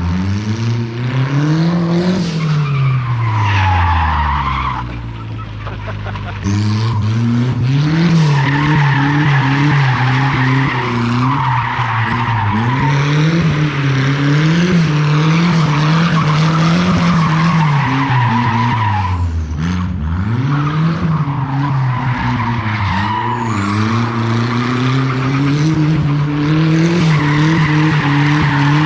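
Turbocharged Nissan Hardbody pickup drifting: the engine revs up and falls back again and again while the rear tires squeal, spinning together on the welded differential with no traction. The sound drops for a couple of seconds and comes back abruptly about six seconds in.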